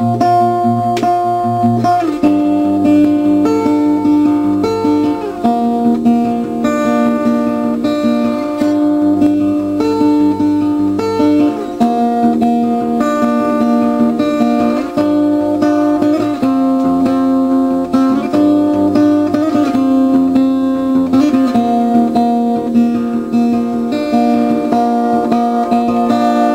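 Acoustic guitar music, strummed chords with held notes and occasional sliding notes.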